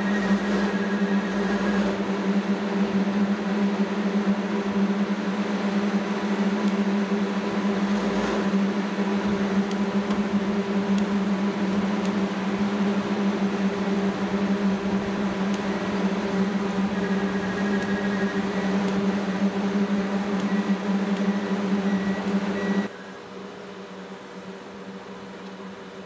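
Heavy construction machinery, a tracked concrete belt placer with its conveyor, running at a constant speed: a steady low machine hum with a faint high whine at times. About three seconds before the end it drops abruptly to a quieter drone.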